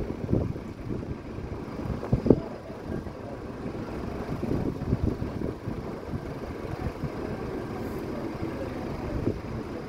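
Road traffic at low speed: a steady low rumble of car engines close by, with a few brief knocks, the sharpest about two seconds in.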